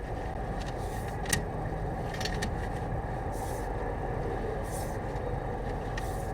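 Steady low engine hum, like a vehicle idling, with one sharp click about a second in.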